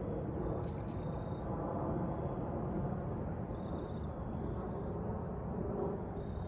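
Steady rumble of road traffic, an even low hum with no single vehicle standing out, and a faint tick about a second in.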